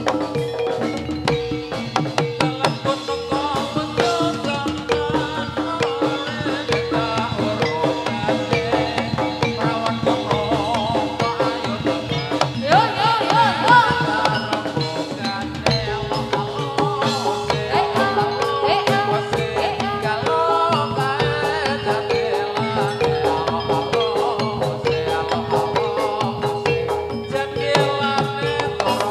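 Javanese gamelan music for a jathilan dance: hand-played kendang drums and struck metallophones keep up a steady, busy rhythm, with a wavering melody line coming in briefly about halfway through.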